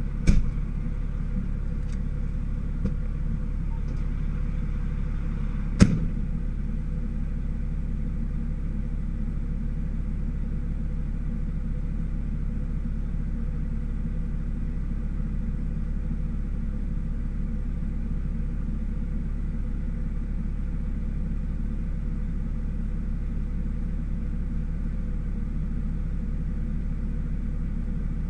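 Fire engine's diesel engine running with a steady low rumble. Two sharp knocks stand out, one just after the start and a louder one about six seconds in.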